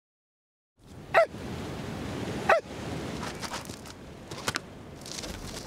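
A black-and-white collie-type sheepdog barking twice, about a second and a half apart, over steady outdoor wind noise that starts about a second in.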